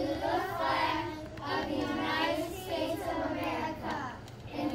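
Children reciting the Pledge of Allegiance together in unison, a drawn-out, chant-like recitation.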